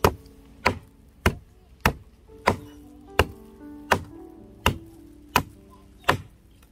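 Hard, evenly spaced strikes of food being worked by hand in the kitchen, about ten at roughly one and a half a second, like steady chopping on a board. Soft background music plays behind.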